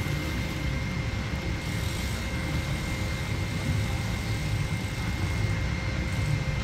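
An engine idling steadily with a low rumble, with a faint steady high-pitched tone over it.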